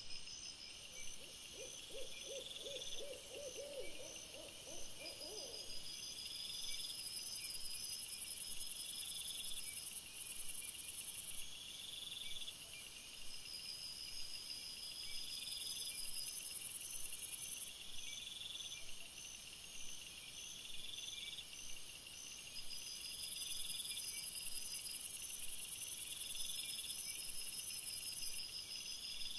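A night insect chorus of crickets chirping in steady rhythmic pulses, with a louder high-pitched buzzing that swells in three times. In the first few seconds there is a rapid run of about a dozen low, owl-like hooting calls that rise slightly in pitch.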